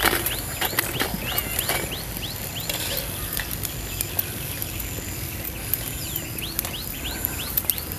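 Hot oil sizzling and crackling as a dhapata (spiced multigrain puri) deep-fries in a metal kadhai. Birds keep chirping in short rising calls.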